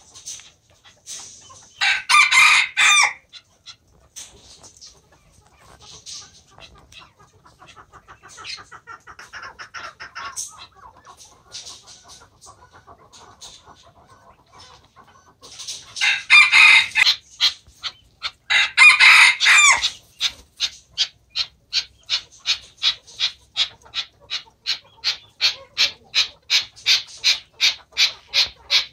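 Arabian partridges (Arabian chukars) calling: three loud harsh bursts, then a long rapid run of evenly repeated chuk notes, about three a second, growing louder toward the end.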